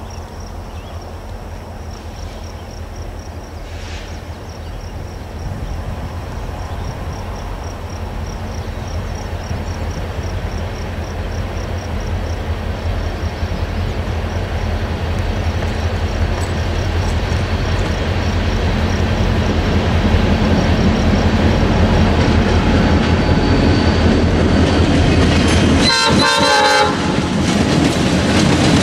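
CN diesel locomotives approaching, their engine rumble growing steadily louder, while a grade-crossing bell rings rapidly. There is a short horn blast near the end, just as the locomotives reach the crossing.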